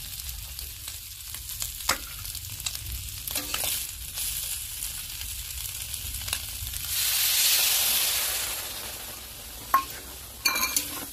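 Small fish sizzling as they fry in a kadhai, with a steel spatula scraping against the pan now and then. About seven seconds in, liquid poured into the hot pan sets off a loud hiss that swells and dies away over a couple of seconds, followed by a few clinks of the spatula.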